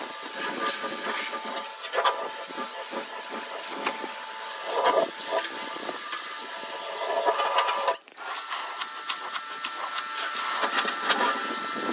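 Harbor Freight pressure washer spraying, its jet hissing and splashing against the wet steel floor and walls of an offset smoker's cook chamber, with a steady whine under the spray. The sound breaks off for a moment about eight seconds in.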